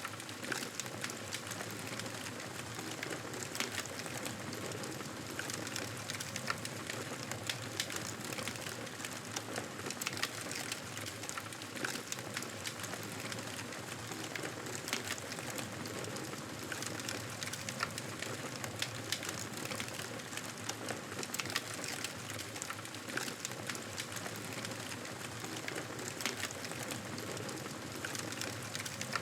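Wood fire crackling in a fireplace: a steady hiss with frequent small, sharp pops.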